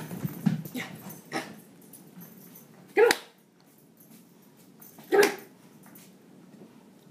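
Chihuahua barking twice, two short sharp barks about two seconds apart, after a few light knocks and scuffles near the start.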